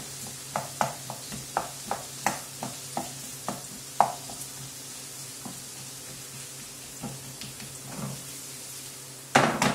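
Wooden spoon tapping and scraping a frying pan while stirring diced carrot, onion and pepper sautéing in olive oil, over a low sizzle. The taps stop about four seconds in, leaving the sizzle. Near the end the pan is shaken on the burner, a sudden loud scraping clatter.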